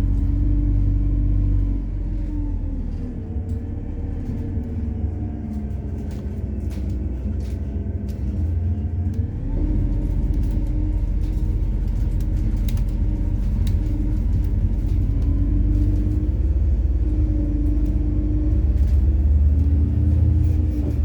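MAZ-103 city bus running on methane (compressed natural gas), heard from inside while driving: a steady engine and drivetrain drone with scattered light clicks and rattles. The engine note eases off about two seconds in, then climbs and grows louder again about nine to ten seconds in as the bus pulls harder.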